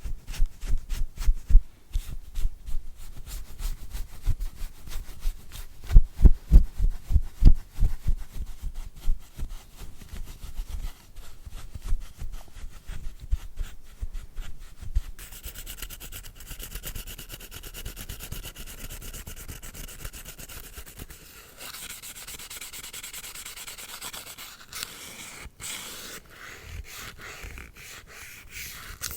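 Close-miked ASMR brush-rubbing and scrubbing cleaning sounds: quick, soft, deep thumping strokes several times a second at first, turning to a brighter, steadier scratchy rubbing about halfway through.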